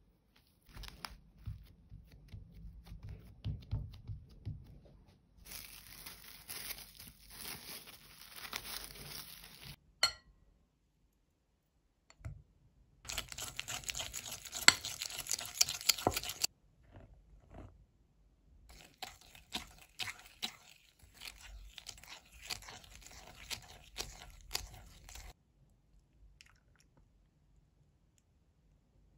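Cling film crinkling as a ball of dough is wrapped, then a wire whisk beating and scraping softened butter around a glass bowl in several spells of a few seconds each, with one sharp click and a short silent gap between.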